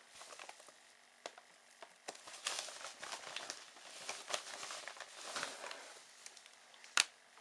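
Packaging crinkling and rustling as parts are handled, with scattered small clicks and one sharp click near the end.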